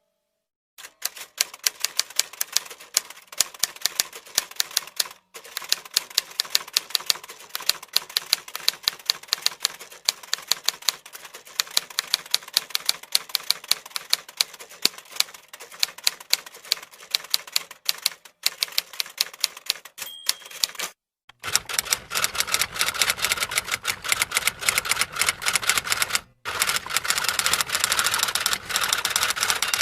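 Typewriter keys clattering in rapid, continuous typing, with a short ring about twenty seconds in. After a brief pause the typing comes back louder and denser, stopping briefly once more near the end.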